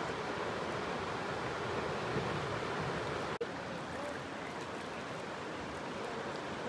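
River rapids rushing: a steady, even wash of whitewater with a momentary gap about three and a half seconds in.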